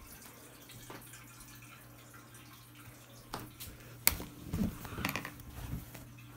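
Handling noise on the recording phone: a sharp click about four seconds in, then a few knocks and rustles as a hand covers it. Under it runs a faint steady hum and water trickle from an aquarium filter.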